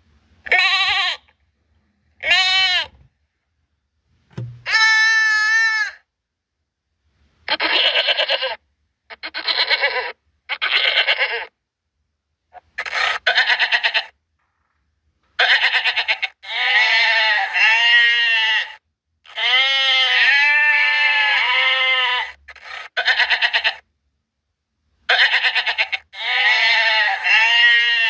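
Goats bleating: a string of separate quavering bleats, some short and some drawn out over a couple of seconds, with gaps of silence between them.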